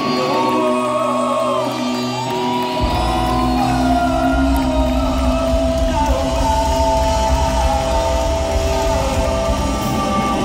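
Reggae band playing live in a large hall, heard from among the audience, with voices singing and shouting over it. The bass and drums come in strongly about three seconds in.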